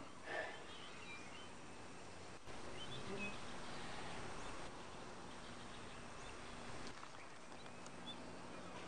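Jungle ambience: faint, scattered bird chirps over a steady background hiss.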